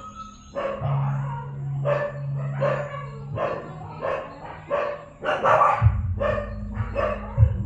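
A dog barking repeatedly, about two barks a second, over a steady low hum.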